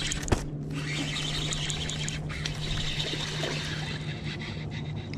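Water trickling and lapping close by, over a steady low hum, with one sharp click about a third of a second in.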